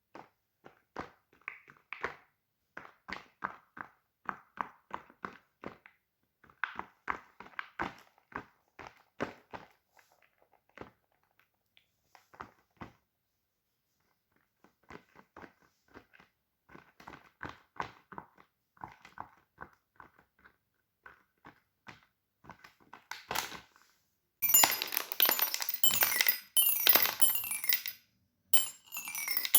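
Fidget toys being handled: a long run of separate sharp clicks and taps at an uneven pace, with a pause in the middle. About three-quarters of the way through it gives way to a louder, dense clinking rattle, like many small hard pieces shaken together.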